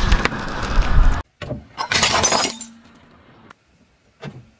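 A car tyre rolling over and crushing things on asphalt, a dense crunching and crackling that cuts off abruptly about a second in. About two seconds in, something brittle shatters under a tyre with a bright ringing clink that dies away over about a second.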